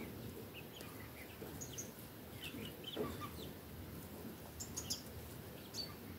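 Domestic hens clucking softly as they forage, with short high chirping notes scattered through and one louder cluck about three seconds in.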